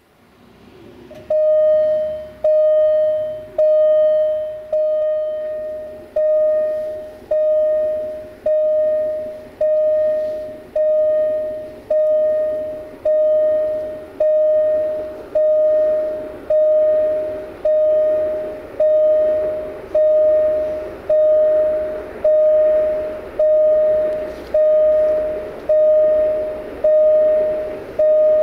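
Railway level-crossing warning bell ringing: a single steady bell tone struck about once every 1.2 seconds, each stroke fading before the next. It warns that a train is approaching.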